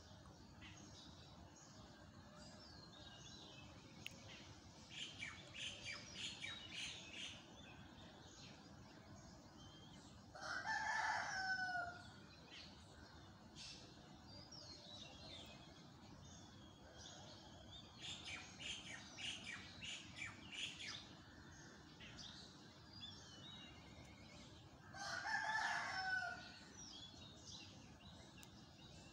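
A rooster crowing twice, each crow about a second and a half long with a falling end, once about ten seconds in and again near the end. Between the crows, small birds chirp in short bursts over faint steady background noise.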